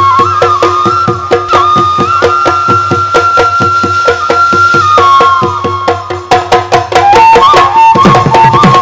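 Assamese Bihu dhol drums beating a steady rhythm under a held, stepping bamboo flute melody. About eight seconds in, the drumming comes in louder and denser.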